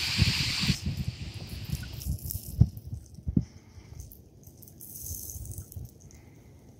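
Canoe paddling: a hissing splash of water off the paddle at the start, then scattered low knocks and thumps, the sharpest about two and a half seconds in, with faint water sounds between.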